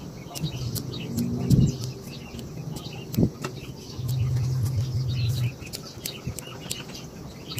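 Bonsai scissors snipping small twigs, a quick string of short sharp clicks, over birds chirping. A low hum rises for about a second and a half in the middle.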